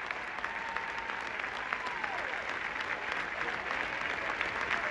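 Large crowd applauding steadily, with a few voices calling out over the clapping.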